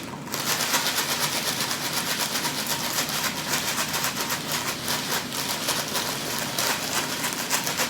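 A sealed packet of dry fideo noodles being shaken and moved so the little noodles rattle continuously inside, imitating the sound of rain. It begins just after the start, a dense, steady rattle of many fine ticks.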